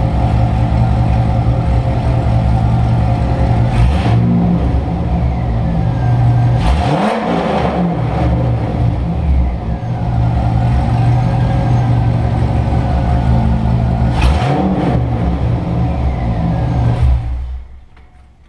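C5 Corvette V8 idling loudly through long-tube headers and an off-road X-pipe with no catalytic converters, mufflers or resonators, blipped on the throttle three times, about four, seven and fourteen seconds in. The sound falls away about a second before the end.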